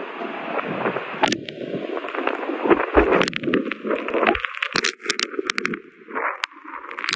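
Hurricane-force wind and driving rain over storm-surge water, a loud rushing noise that buffets the phone's microphone, with rapid crackling clicks from about three seconds in.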